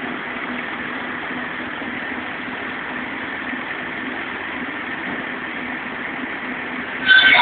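Firewood-cutting saw machine running steadily with a low hum. Near the end, a sudden, much louder high-pitched screech starts: the saw cutting into wood.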